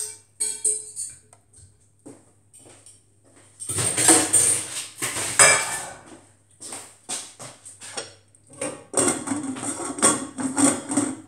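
Kitchen dishes and cutlery clattering as they are handled: scattered knocks and clinks, with two busier stretches of clatter, one about four seconds in and one near the end.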